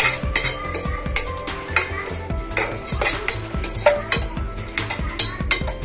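Steel ladle scraping and clinking against a stainless steel saucepan as makhana (fox nuts) are stirred while frying in ghee, in irregular strokes.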